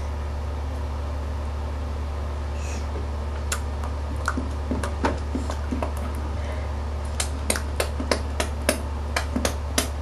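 Steady low hum with small, sharp clicks that begin a few seconds in and come faster toward the end.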